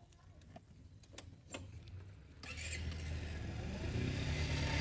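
A few light clicks, then about halfway in a motor scooter's engine starts and runs with a low hum, growing louder toward the end.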